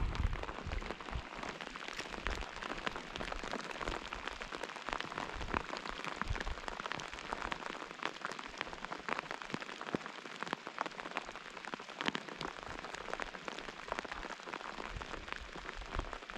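Steady rain falling on the lake and nearby gear, a constant hiss dotted with many separate drop hits.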